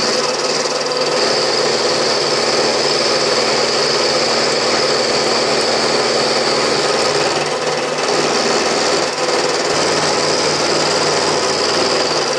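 Bridgeport milling machine running with its end mill cutting a step into a metal blank: a steady high-pitched cutting whine over the machine's hum, dipping briefly about nine seconds in.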